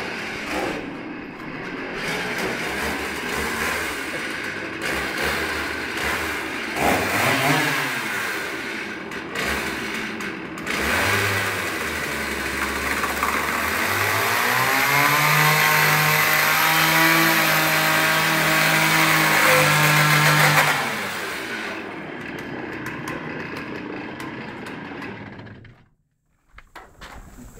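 Two-stroke chainsaw running unevenly at first, then revving up to a steady high speed for about six seconds in the second half before dropping back; it is being used to cut wooden boards. The sound cuts off abruptly near the end.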